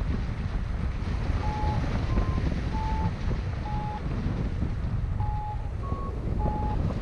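Wind rushing over the microphone of a paraglider in flight, with a variometer beeping: about seven short beeps spaced irregularly with a pause in the middle, two of them slightly higher. The slow, broken beeping is the sign of weak lift.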